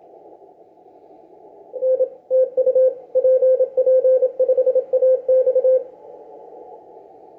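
Amateur radio transceiver sounding a Morse code (CW) tone, keyed in dots and dashes for about four seconds starting about two seconds in, over the steady hiss of band noise through a narrow CW filter.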